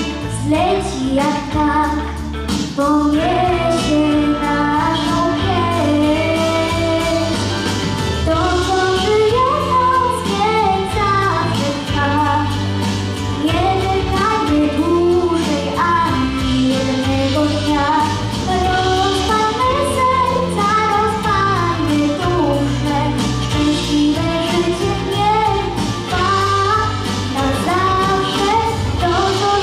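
A young girl singing a song solo into a microphone, her amplified voice carried over instrumental accompaniment with a steady bass.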